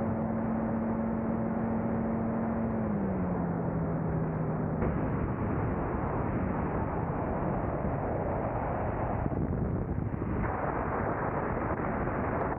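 Small aircraft engine droning in flight. Its pitch drops about three seconds in as it is throttled back, and it fades under heavy wind rushing over the microphone.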